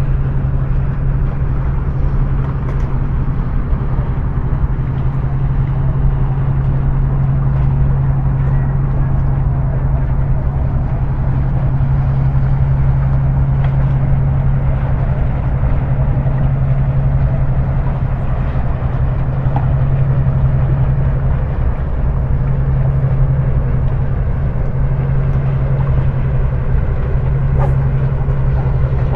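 A steady low motor drone running at an even level throughout, over a faint outdoor background.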